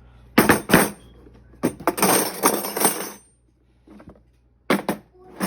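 Metal tools of a Husky tool set clinking and rattling as they are handled. There are two sharp clicks, a longer clattering rattle about a second and a half in, and more clicks near the end.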